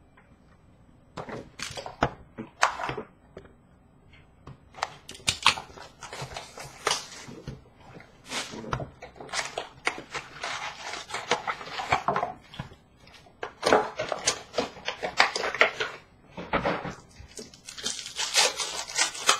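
Hockey card packs being torn open, the wrappers ripping and crinkling in irregular sharp crackles, with the cards inside shuffled in hand; the crackling comes thicker in the second half.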